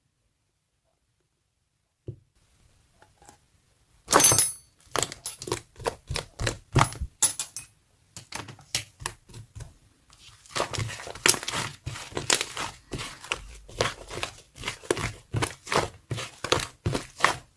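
Slime clay being squished and pressed by hand, making a quick run of sticky clicks and crackling pops, two to three a second, that starts about four seconds in.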